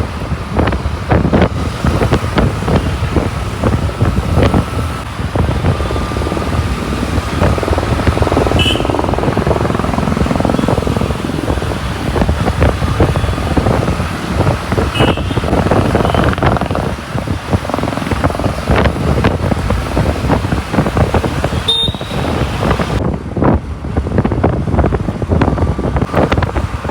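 Wind buffeting the microphone of a moving vehicle, over a steady rumble of road and engine noise from highway travel. Three brief high chirps stand out about a third, halfway and three-quarters of the way through.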